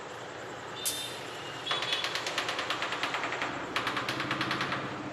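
Small hammer tapping a wall tile to bed it in: one tap about a second in, then two runs of fast, light taps, about ten a second.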